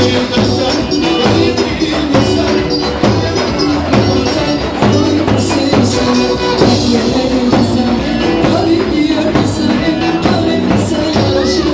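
Loud dance music with a steady beat and bright, sharp percussion on top.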